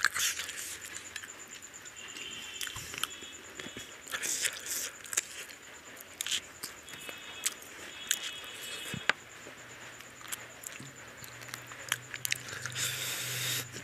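Close-up eating sounds: fingers squishing and mixing rice with curry gravy, and wet chewing and lip smacks, heard as many short, irregular clicks and smacks.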